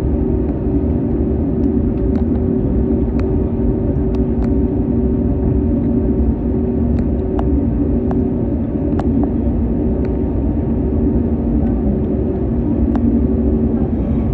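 Cabin noise of an Airbus A321neo with its Pratt & Whitney geared turbofan engines running at idle while it taxis: a steady low rumble under a steady hum, with a few faint clicks.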